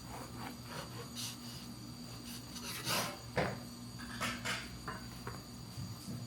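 Objects being handled on a household surface: rubbing and scraping with several light knocks and clicks, the loudest about three seconds in, over a steady low hum.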